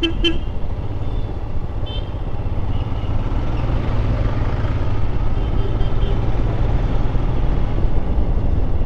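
Motorcycle running on the road, a steady engine drone under constant wind and road noise.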